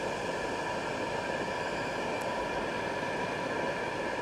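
Riello RDB oil burner's fan motor and pump running steadily in pre-purge before ignition: an even rush of fan air with a few steady tones on top.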